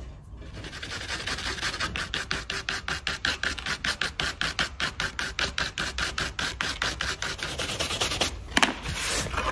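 Small stiff-bristled brush scrubbing rapidly back and forth across an embossed seat panel, about six or seven strokes a second. It is clearing still-soft water-based wood filler out of the relief detail. The strokes stop with one louder scuff near the end.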